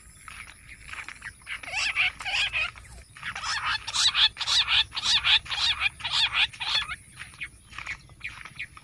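Bush quail calling: a fast run of short repeated notes, about two or three a second, loudest in the middle.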